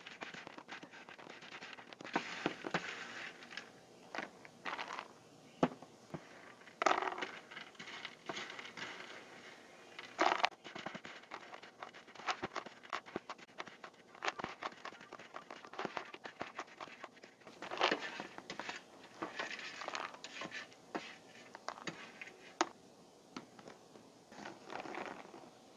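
Wooden spatula scraping toasted bread croutons across a metal baking tray and pushing them into a plastic container: repeated scrapes and crunchy clicks as the croutons tumble in.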